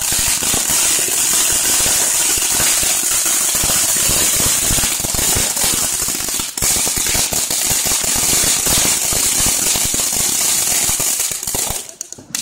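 Ground fountain fireworks spraying sparks: a steady high hiss over dense, rapid crackling, cutting off near the end.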